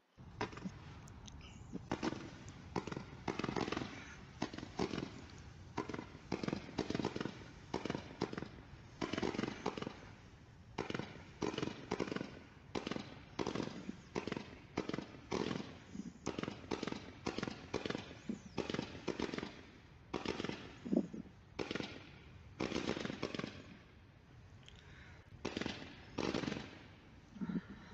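Roman candle firing shot after shot, each a sharp pop. The shots come at uneven intervals, with a brief lull near the end, so the spacing of the firing is not the greatest.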